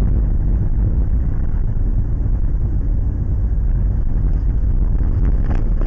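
Steady low rumble of a car driving on a snow-packed road, engine and tyre noise heard from inside the cabin through a dashcam microphone, with a few faint clicks near the end.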